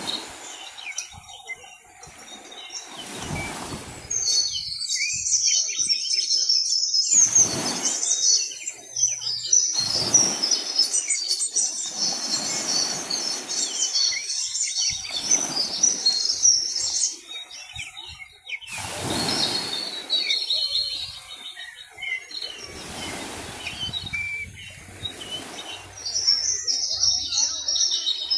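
Many small birds chirping in a dense, busy chorus, with repeated rushing swells of noise every few seconds.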